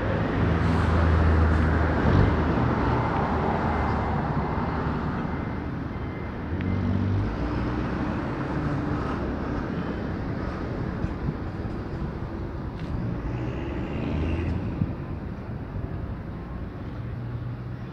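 Military transport planes droning overhead, loudest in the first few seconds and slowly fading as they fly off, over a rumble of city street traffic.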